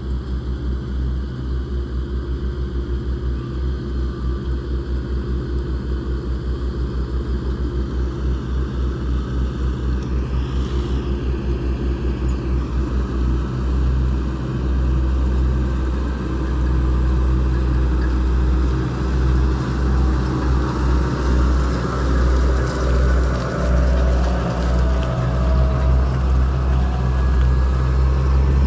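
Fendt tractors' diesel engines working steadily under load as they pull front- and rear-mounted ploughs, a deep pulsing rumble that grows gradually louder as they come closer.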